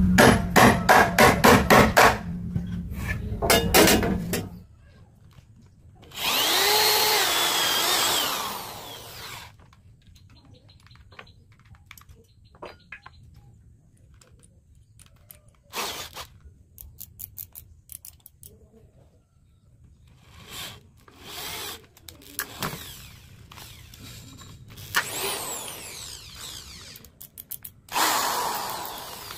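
Woodworking power tools heard in several short runs. It opens with a quick series of sharp knocks, about five a second, over a low hum. A power tool whines with a wavering pitch for about three seconds, then there are scattered clicks and knocks, and another tool run comes near the end.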